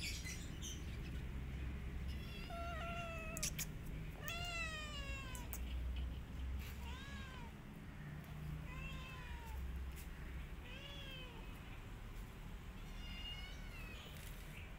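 A kitten meowing about six times, each meow rising and falling in pitch. The first two are drawn out and the later ones are shorter. A few sharp clicks come between the early meows.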